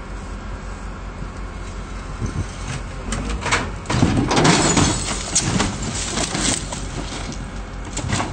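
A junked car tumbling down a slope, crashing into the ground again and again: a series of loud impacts starting about three seconds in, loudest around four to five seconds and dying away by about seven seconds, over a steady low rumble.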